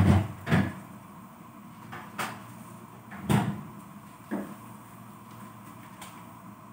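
Refrigerator door and items on its shelves being handled, then the door shut: about five knocks and thumps over four and a half seconds, the loudest right at the start and about three seconds in.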